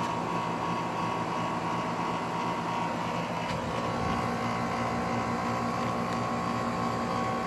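Rheem 3-ton central air-conditioner condensing unit running in cooling mode: its Copeland scroll compressor and condenser fan make a steady, loud hum with a higher steady whine over it.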